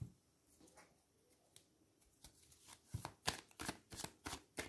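Tarot cards being shuffled and handled: a soft knock at the start, then from about two seconds in a quick run of crisp card snaps, several a second.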